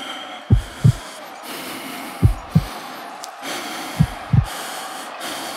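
Paired low thumps like a heartbeat, a double beat repeating about every 1.7 seconds, over a steady hiss.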